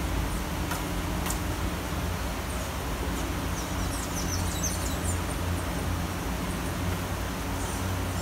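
Steady city rain ambience: a continuous hiss of rain over a low traffic rumble. Birds chirp briefly near the middle, and two sharp ticks come about a second in.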